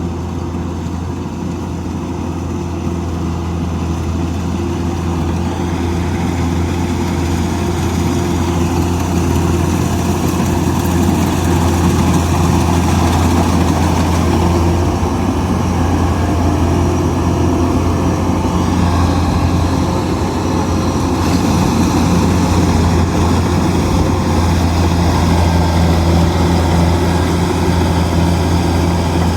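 Kubota DC-105X combine harvester's diesel engine running steadily under load while harvesting rice, a constant low drone with mechanical noise from the machine over it, growing a little louder over the first ten seconds or so.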